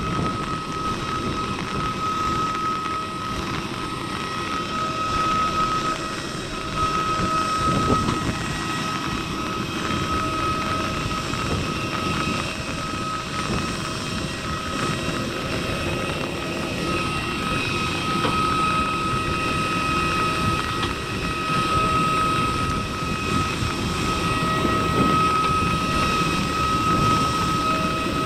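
Jet airliner's turbine whine on the apron: a steady high tone over a low, fluctuating rumble.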